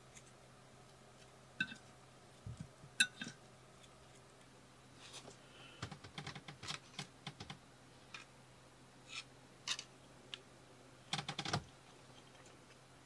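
Faint, scattered light clicks and taps of eating utensils and dishes being handled, with a short run of clatter about 11 seconds in.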